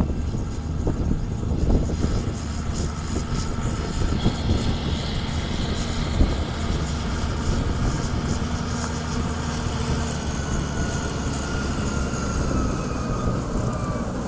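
Steady rumble of distant aircraft engine noise with gusty wind on the microphone. A faint whine slowly falls in pitch over the last few seconds.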